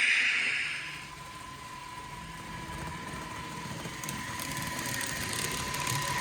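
DCC sound decoder in an N gauge model locomotive playing a diesel engine sound, running steadily with a thin constant hum over a low rumble. A loud hissing rush fades out in the first second, and faint rapid clicking joins about four seconds in.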